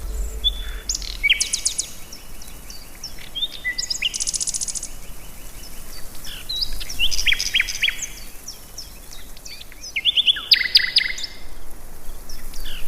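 Several songbirds chirping and singing: short whistled notes, quick rattling trills and rising and falling chirps, coming in bunches with brief lulls between them.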